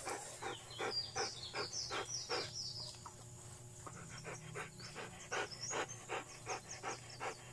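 A dog panting in quick, even breaths, about three a second, with a short lull about three seconds in, while it is being soaped for a bath.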